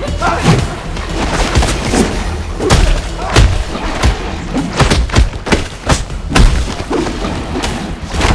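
A rapid string of heavy punch and kick impact sound effects, about a dozen hits, some coming in quick pairs, with a rising swish at the start.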